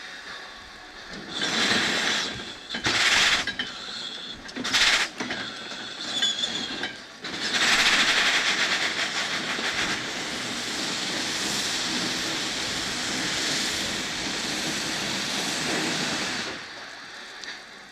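Erie Type A steam shovel's steam engine working: a few short bursts of steam in the first five seconds, then a long steady hiss of steam lasting about nine seconds that cuts off near the end.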